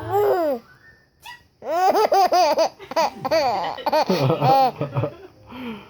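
Baby belly-laughing: a short laugh, then after a pause of about a second a long run of quick high-pitched laughter pulses, rising and falling in pitch, with a last small laugh near the end.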